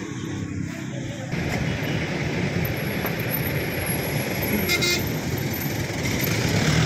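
Busy street traffic noise of jeepney, motorcycle and truck engines, with a short vehicle horn toot near the end.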